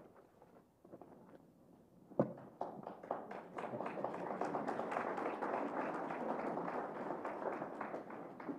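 A sharp knock about two seconds in, then a congregation applauding, scattered claps building into steady clapping.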